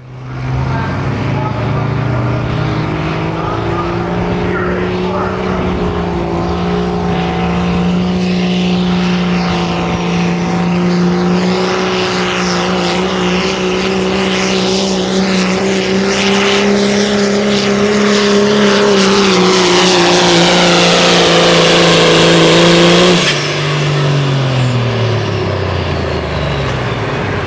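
Pulling truck's engine running hard at high, steady revs during a pull, creeping up in pitch, with a hiss building over its last few seconds. About 23 seconds in it lets off and the revs fall away.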